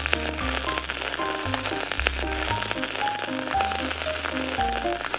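Background music: a tune of short notes over a bass line that steps to a new note about once a second.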